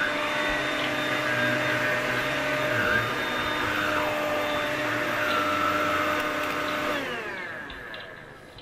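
Bosch cordless handstick vacuum cleaner running steadily, then switched off about seven seconds in, its motor whine gliding down in pitch as it spins to a stop.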